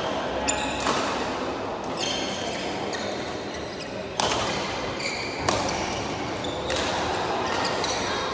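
Echoing sports-hall sound of badminton play: sharp racket hits on shuttlecocks and shoe squeaks on the court floor, several times, with indistinct voices in the background.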